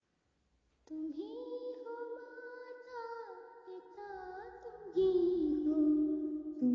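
Music with a high singing voice holding long notes that glide from pitch to pitch. It starts about a second in and grows louder about five seconds in.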